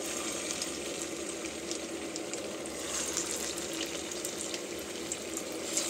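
Soybean-and-gram-flour pakoras frying in hot oil in a kadhai: a steady sizzling hiss peppered with small crackles as the batter cooks.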